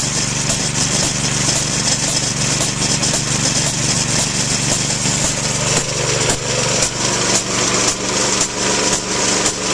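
A Harbor Freight Predator 212cc single-cylinder four-stroke engine running steadily under load, driving a military air compressor's pump as it builds tank pressure. From about six seconds in, the sound takes on a more uneven, pulsing beat.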